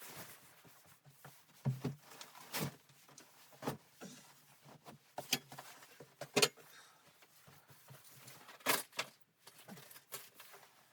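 Irregular knocks, clicks and clatters of objects being handled in a small room, the loudest two about six and a half and nine seconds in.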